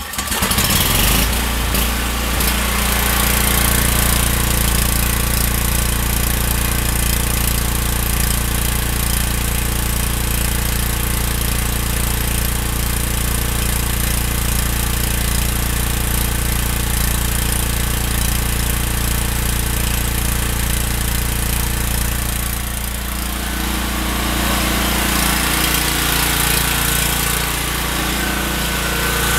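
Briggs & Stratton portable generator's single-cylinder overhead-valve engine pull-started on the recoil cord, catching at once and then running steadily. About 23 seconds in, the sound dips and changes tone before settling again.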